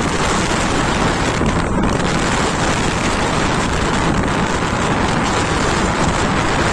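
Steady rush of wind buffeting the microphone while riding on a moving motorbike.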